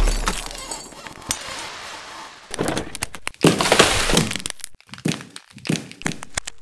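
Cartoon-logo sound effects of cracking and breaking: the low rumble of a heavy crash fades at the start, then a series of separate sharp cracks and breaking noises follow from about two and a half seconds in.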